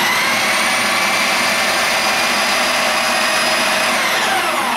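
Breville food processor motor running at speed, its blades puréeing softened vegetables in stock: a steady whine that sinks in pitch as the motor winds down near the end.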